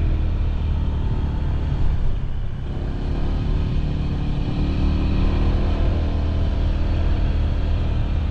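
Honda PCX scooter's single-cylinder engine running while riding, with a steady low drone. The engine eases off briefly about two and a half seconds in, then picks up again.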